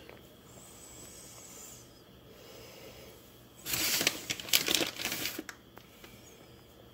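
Crinkly rustling of a plastic bag of shredded mozzarella as a handful of cheese is taken out, loud for about two seconds near the middle. Before and after it, only faint room noise is heard.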